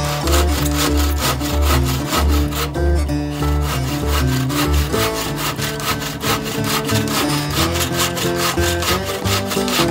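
Wooden-framed bow saw cutting through a log in quick, even back-and-forth strokes, with background music underneath.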